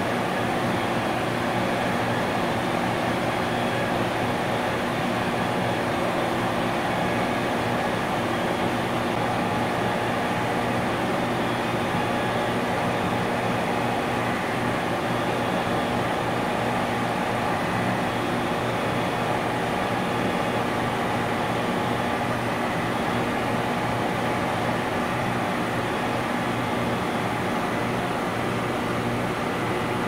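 Industrial compressor running steadily, a continuous hum that does not change in level.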